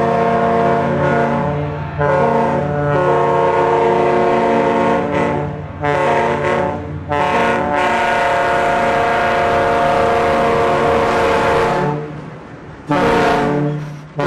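A large air horn blown in long, steady blasts with a few short breaks between them.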